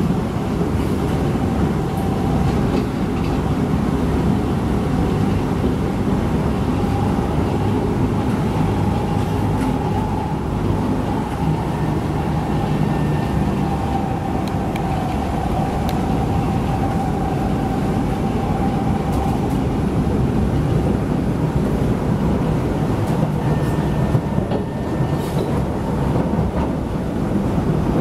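Kawasaki C151 metro train running at steady speed, about 65 km/h, heard from inside the car: a steady low rumble of wheels on rail with a faint, slowly wavering tone above it.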